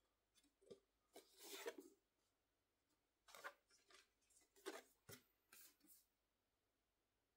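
Faint rustling and sliding of photo cards being handled and flipped through: a string of short scrapes and swishes, the longest about a second in.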